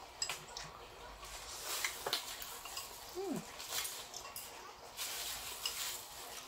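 People slurping noodles in several short noisy draws, with light clicks of chopsticks and spoons against bowls, and a brief falling squeak about three seconds in.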